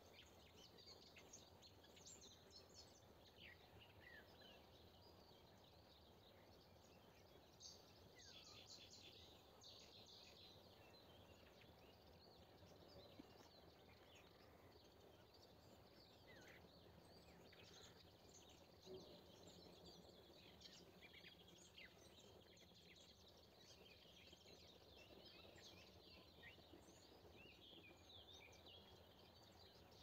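Faint morning chorus of several wild songbirds chirping and trilling, with a rapid trill about eight seconds in, over a low steady rural background hum.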